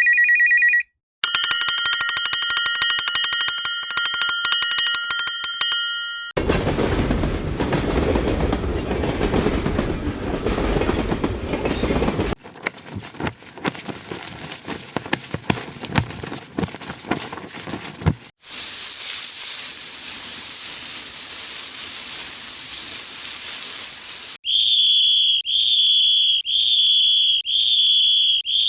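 A run of separate short sound effects: a bell ringing with rapid strikes for about five seconds, then a loud low rumbling noise, a stretch of rapid clicking and rattling, a steady hiss, and finally a whistle blown in short sharp blasts about once a second.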